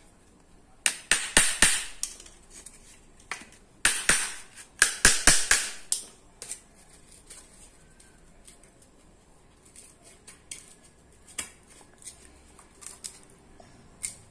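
A nail gripped in pliers being knocked through 9 mm plywood to punch a starter hole for a manual fretsaw blade. There are two clusters of sharp knocks, each lasting a second or so, then a few lighter taps.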